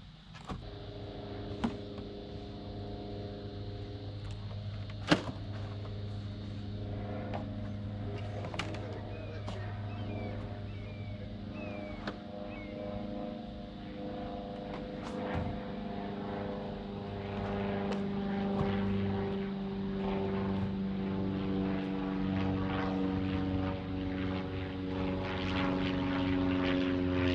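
Diesel engine of a compact excavator or track loader working, its note shifting with load and growing louder toward the end, with sharp metallic clanks now and then.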